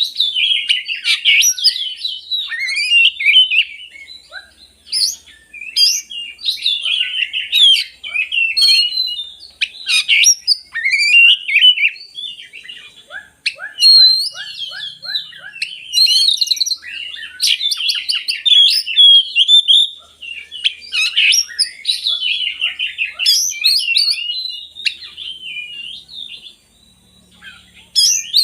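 Oriental magpie-robin (kacer) singing a long, varied song of loud whistled phrases, quick trills and rapid runs of repeated notes, broken by short pauses.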